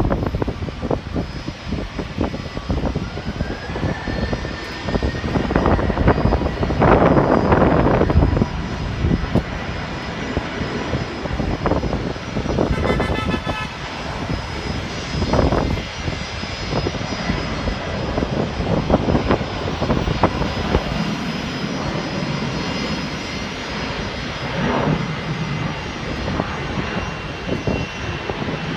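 Jet airliner engines running, with a high whine that rises about three seconds in and then holds steady. Wind gusts buffet the microphone throughout.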